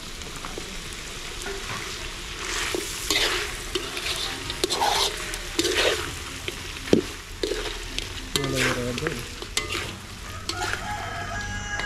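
Chunks of meat frying and sizzling in a metal wok over a wood fire, stirred and scraped with a metal spatula, with sharp clinks of the spatula against the pan.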